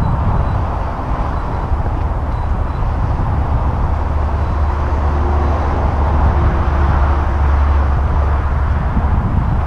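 Wind rushing over the microphone of a camera on a moving bicycle, with tyre noise on the paved path: a steady low rumble that swells for a few seconds in the middle.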